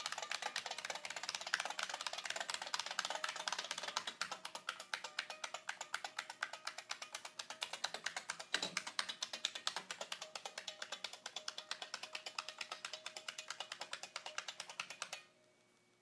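Buckling-spring keys of a 1985 IBM 122-key Model F keyboard clacking in a fast, even run of keypresses, several a second. The clacking stops suddenly about a second before the end.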